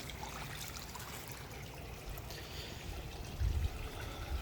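Water trickling steadily into a koi pond, the flow of its small rock waterfall. A brief low rumble breaks in about three and a half seconds in.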